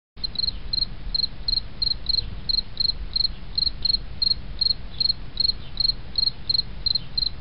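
Crickets chirping in short regular chirps, about three a second, over a low steady rumble.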